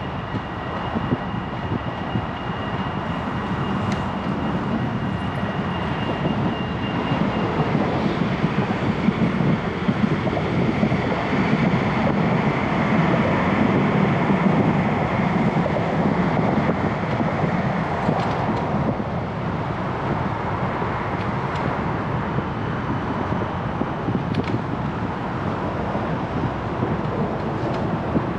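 Passing city street traffic and wind noise on the microphone of a moving bicycle, a steady rush throughout. A thin, steady high whine sounds for the first seven seconds or so.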